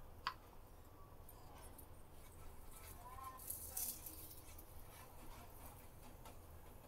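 Faint handling sounds of a paratha being moved and lifted in a hot frying pan: one sharp click about a quarter second in, and a brief rustling scrape a little past halfway, over a low steady hum.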